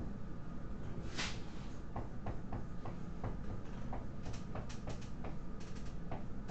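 Dry-erase marker writing on a whiteboard: a string of light irregular taps and short strokes, with one longer scratching stroke about a second in.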